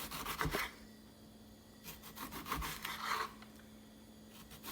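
Kitchen knife sawing through a lemon on a cutting board: two bouts of quick strokes, the second starting about two seconds in, each with a soft knock of the blade reaching the board.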